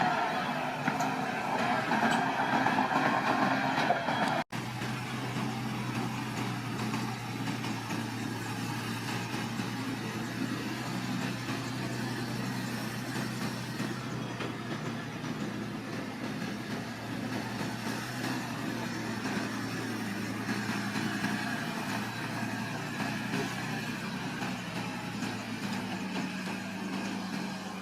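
Heavy earthmoving machine's engine running at a steady pitch. About four and a half seconds in the sound cuts out for an instant, after which the engine hum is quieter and lower.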